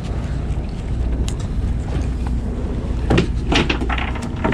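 Knocks and clatter of handling on a fishing boat, a few single knocks and then a quick cluster about three seconds in, over a steady low rumble.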